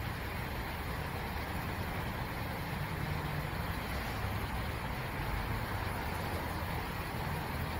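Steady road-vehicle noise: traffic and engines running nearby, with a low engine hum.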